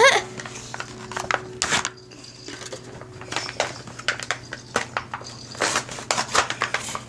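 Plastic crinkling and handling noises: a string of short, irregular crackles and clicks as a toy and its wrapper are handled.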